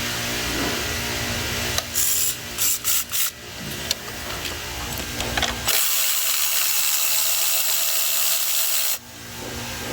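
Compressed-air blow gun: a few short hissing bursts about two seconds in, then a steady blast of about three seconds that cuts off suddenly.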